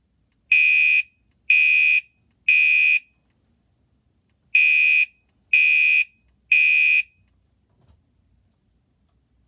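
Gentex Commander 3 fire alarm horn sounding a high-pitched blast in the temporal-three evacuation pattern: three half-second blasts a second apart, a pause, three more, then it stops.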